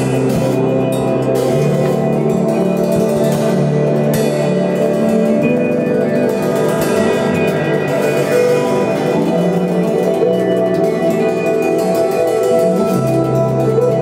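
Improvised instrumental band jam: layered sustained droning tones over a bass line that moves to a new note every couple of seconds, with scattered light percussion strikes.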